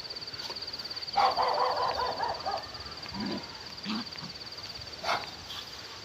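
A steady, high, rapidly pulsing insect trill in rural vegetation, with a harsh animal call about a second in, and a few faint knocks.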